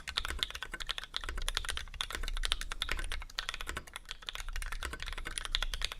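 Steady fast typing on a KBD661 mechanical keyboard fitted with lubed vintage Cherry MX Black linear switches with Outemu Ice v2 top housings and 65 g springs: a continuous run of quick, crisp key clacks, several strokes a second.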